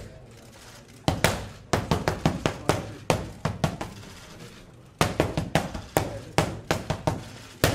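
Boxing gloves popping against focus mitts in fast combinations: rapid runs of sharp pops, about four or five a second, starting about a second in and again about five seconds in, with a short break between.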